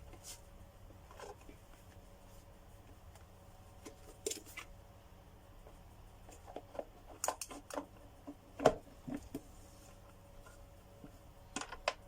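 Scattered small clicks and taps of parts being handled on a workbench, with one sharper knock a little past the middle.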